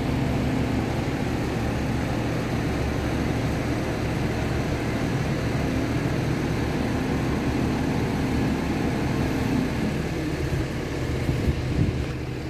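Mobile crane's diesel engine running steadily during a lift, a low, even drone. A few sharp knocks sound near the end.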